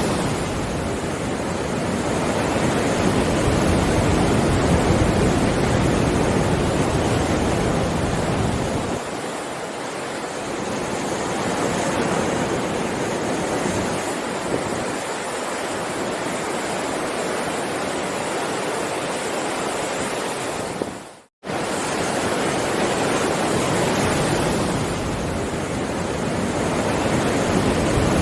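Heavy ocean waves surging and washing in a continuous, swelling wash of surf. The sound drops out for a split second about two-thirds of the way through, then resumes.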